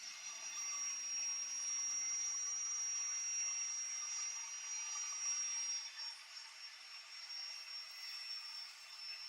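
Electric cut-off saw's motor and blade running, a steady high whine over a rushing noise that drifts slightly down in pitch; it gets a little quieter about six seconds in.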